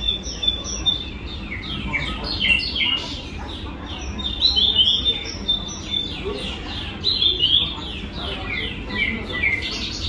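Several caged songbirds chirping together: a quick, continuous run of short, high-pitched notes that each drop in pitch, several a second, busier about halfway through and again later on.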